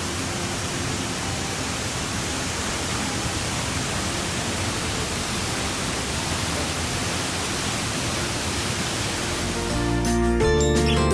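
Steady rushing roar of a waterfall, an even hiss-like noise with no rhythm. Guitar background music comes back in about ten seconds in.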